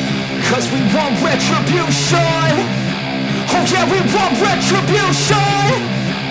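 Hard rock music with distorted guitar, drums and a vocal line.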